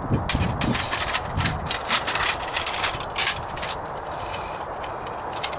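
Metal parts of a small portable wood-burning camp stove handled and taken apart: a run of quick clicks, clinks and scrapes, busiest in the first three seconds, then fewer.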